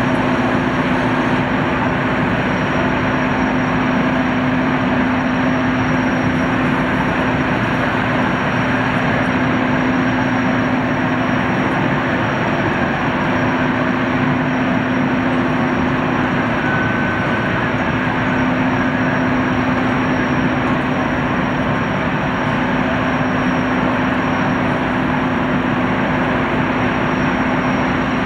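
Gas turbines of a Boeing Jetfoil 929-115 running steadily at low speed: an even machine roar with a steady low hum and a thin high whine.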